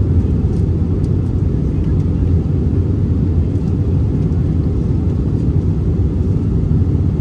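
Steady low roar of engine and airflow noise inside the cabin of an Airbus A319-100 airliner descending on approach.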